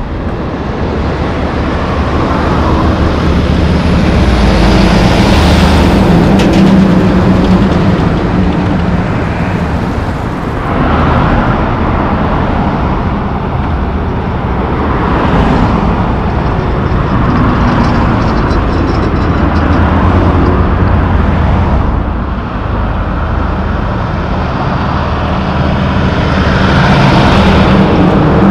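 Loaded diesel logging trucks passing close by one after another on a paved road, engines running with a low drone over tyre and road noise. The sound swells and fades several times as each truck goes by, with cars passing in between.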